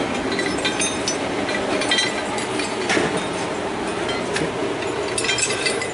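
Metal gun parts, AR-15 receivers hung on a metal rack, clinking and rattling against each other and the rack as it is carried and handled. Under them runs a steady shop rumble.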